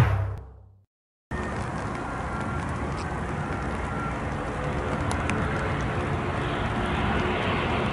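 Intro music with timpani fades out within the first second. After a moment of silence, the jet engines of an approaching Boeing 737-800 come in as a steady, dense rushing noise that slowly grows louder, with a few faint clicks.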